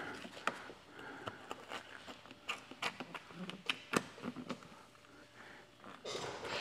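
Wet paint protection film being pulled up off a painted bumper and handled by fingers: faint scattered clicks and crinkles of the plastic sheet, with a slightly louder rustle near the end.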